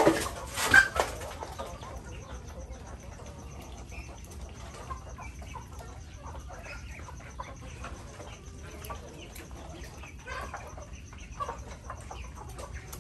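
Chickens clucking with short, scattered calls from a mixed flock of chickens and ducks, with a brief loud flurry right at the start.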